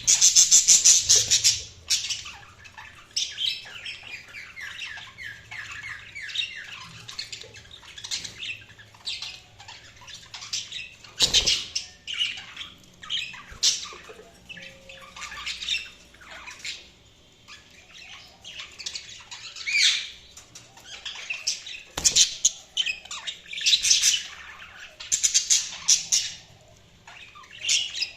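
Budgerigars chirping and squawking in repeated bursts of short, high chirps, loudest in the first two seconds. Two sharp knocks sound about a third and two-thirds of the way through.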